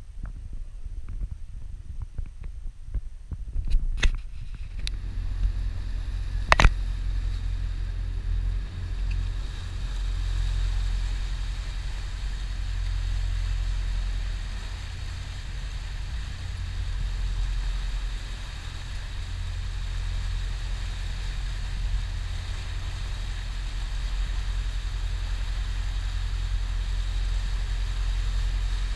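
Wind buffets the microphone for the first few seconds, with a sharp knock about six and a half seconds in. Then a boat's engine runs steadily under the rushing water of its wake.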